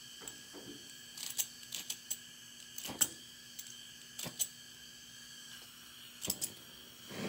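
Sharp metallic clicks and taps, some in quick pairs, as a Bunsen burner's gas valve and striker are worked to light it. Right at the end the gas flame catches with a steady rush.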